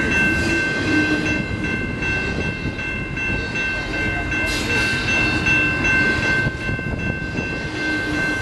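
Double-stack intermodal freight train rolling past close by: a continuous rumble of steel wheels on rail. A steady high-pitched squeal sits over it throughout.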